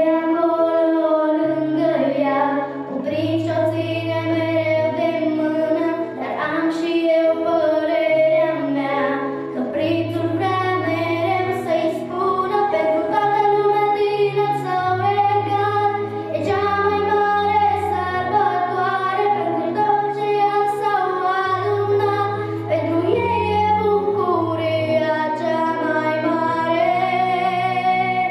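A young girl singing a song into a handheld microphone over an instrumental accompaniment with a sustained bass line that moves in steps.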